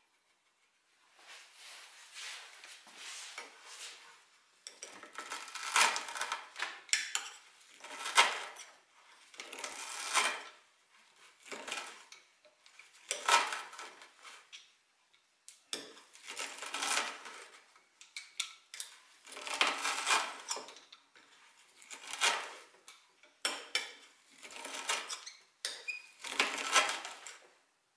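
Metal hand tools, a flat scraper blade and then carpenter's pincers, scraping, prying and gripping at the old fur tail stub set into a wooden rocking horse. The sound comes in about a dozen irregular scraping strokes with short pauses between them.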